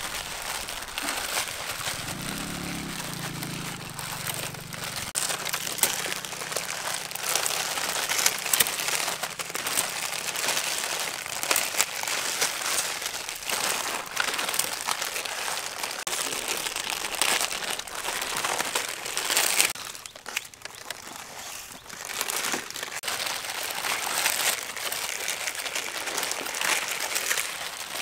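Plastic instant-noodle packets crinkling continuously as several are handled and opened by hand at once.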